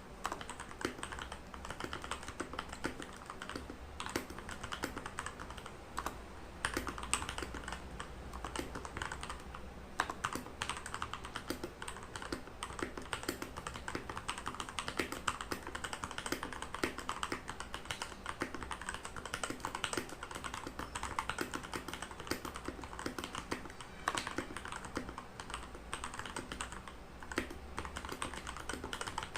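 Redragon Kumara mechanical keyboard with lubed Outemu Red linear switches being typed on steadily at a moderate pace, a continuous run of key presses of about five a second.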